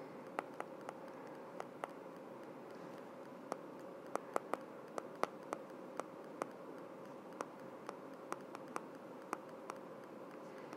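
Stylus tip tapping and clicking on a tablet's glass screen while writing by hand: faint, irregular clicks, some sharper than others, over a low steady hum.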